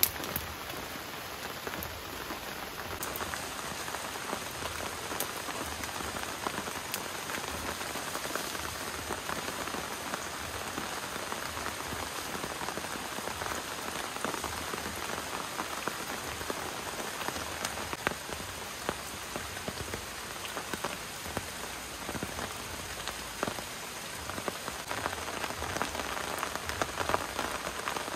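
Steady rain falling on a surface: an even hiss of many small drop impacts, with no let-up.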